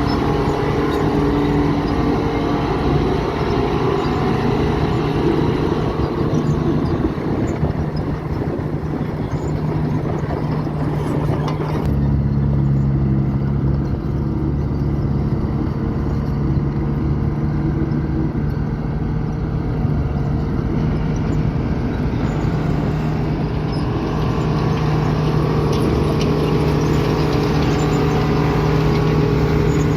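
Heavy diesel earthmoving machinery running, a steady engine drone with a sudden shift in its tone about twelve seconds in.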